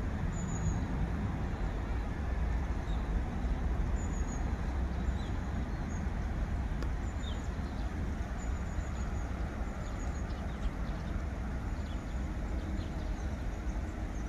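Steady low rumble of distant road traffic, with scattered short, high chirps of small birds over it.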